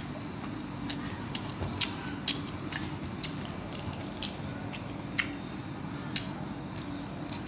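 A few scattered sharp light clicks and taps, irregularly spaced, over a steady low background hum.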